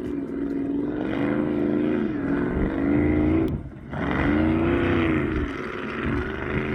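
Off-road race vehicle's engine revving hard while pre-running a rock trail, its pitch rising and falling repeatedly, with a brief drop off the throttle about three and a half seconds in.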